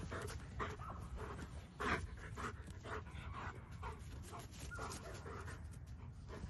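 German Shepherd panting hard in quick breathy puffs while playing, with one louder burst about two seconds in.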